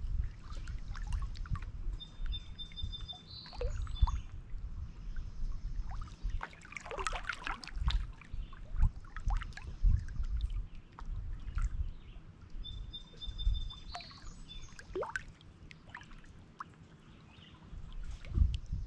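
Small lake waves lapping and splashing irregularly against shoreline rocks. A songbird sings a short high phrase of repeated notes twice, about ten seconds apart.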